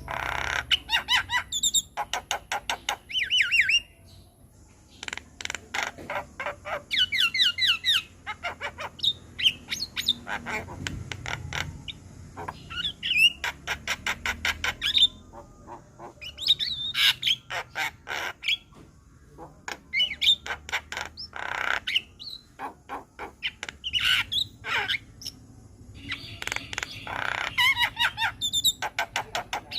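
Javan myna (jalak kebo) singing a long, varied song: harsh squawks, rapid runs of sharp clicks and short fast trills and whistles, phrase after phrase with brief pauses between.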